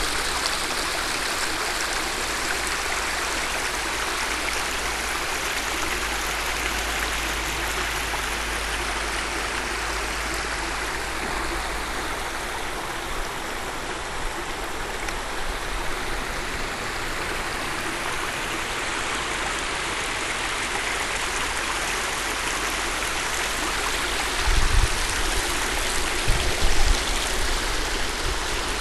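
Creek water rushing and splashing over stepped rock ledges at the top of a waterfall, a steady rush that eases a little in the middle. A few low bumps come in near the end.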